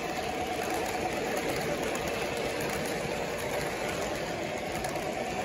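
MTH Premier O-gauge model train running: steady rolling rumble of the passenger cars' wheels on three-rail track, with a continuous diesel engine sound from the GP30 locomotive's sound system.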